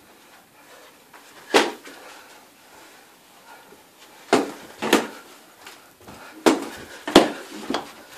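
Boxing-glove punches landing in sparring: about six sharp slaps at irregular intervals, most of them in the second half.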